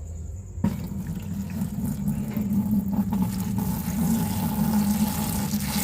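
Water running in a steady stream, starting suddenly about half a second in.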